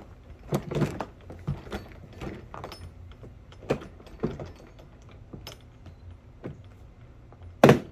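Plastic seat framework being worked into an Oru Bay ST's folded polypropylene hull: scattered clicks, knocks and rustles of plastic, then one loud sharp snap near the end as the frame snaps into place.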